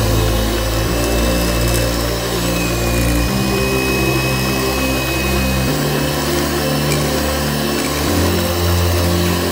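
Electric mixer running steadily, its twin beaters creaming butter and sugar.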